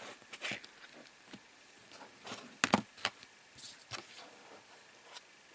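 Handling noise of mobile phones being picked up, turned over and set down on a cloth-covered table: a scatter of light taps and clicks, with a few sharper knocks a little past halfway.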